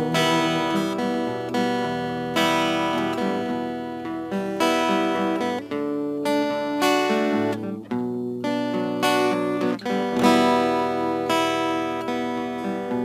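Background music: an instrumental passage of plucked string chords between sung lines of an Arabic religious song, with notes struck about once a second, each ringing and fading.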